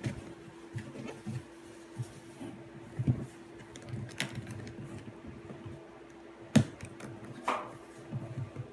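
Packaging being handled during an unboxing: scattered clicks, taps and knocks, one sharp knock standing out about six and a half seconds in, over a faint steady hum.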